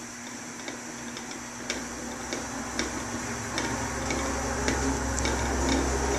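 Irregular sharp ticks and crackles, a few a second, from a hot wood stove with a coffee pot perking on top, over a steady low hum.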